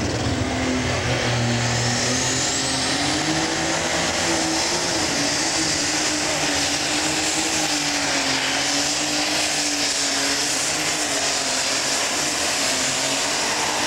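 John Deere unlimited super stock pulling tractor's turbocharged diesel running flat out under load while pulling the sled. A loud, steady engine note wavers slightly in pitch, over a high whine that climbs in the first few seconds and then holds.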